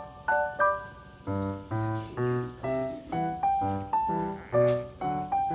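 Background music: a light keyboard melody of short, evenly paced notes, with bass notes joining about a second and a half in.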